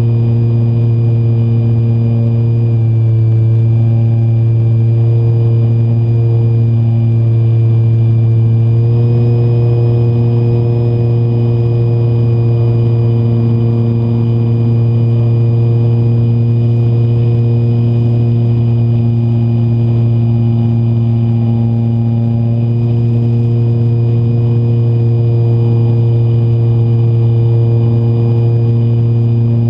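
Model plane's motor and propeller running steadily at climb power, heard close up from the nose, with a steady hum and a thin high whine; the pitch shifts slightly a few seconds in and again about nine seconds in.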